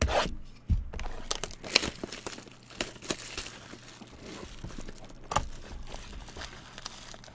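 Trading card packaging being torn open and handled: irregular crinkling and tearing with a few sharp knocks.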